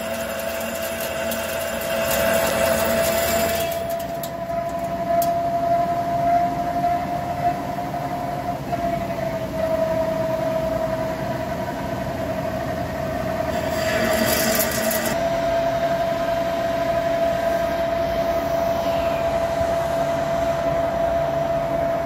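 Hankook Protec 9-NC CNC lathe turning a large forged workpiece, the cutting insert taking a heavy cut with a steady whine. A louder hiss of cutting noise comes over it during the first few seconds and briefly again about two-thirds of the way in.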